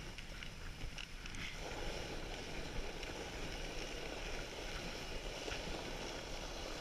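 Dog sled moving along a packed snow trail behind a husky team: a steady rushing noise of the runners sliding over snow, with wind on the microphone.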